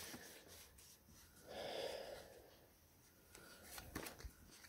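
Very quiet: faint rustling of a long paper instruction leaflet being handled and unfolded, with a slightly louder soft rustle about two seconds in.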